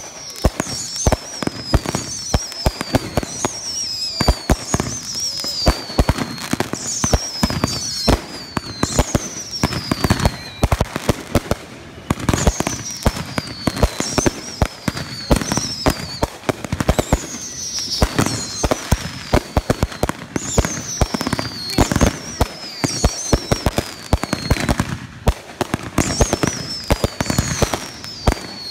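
Consumer fireworks going off in quick succession: a dense run of pops and crackling bangs, with a high whistle falling in pitch every second or two.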